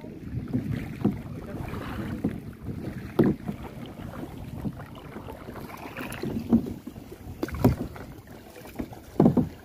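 Kayak paddling: paddle strokes in the water, with a few sharper splashes or knocks, over wind rumbling on the microphone.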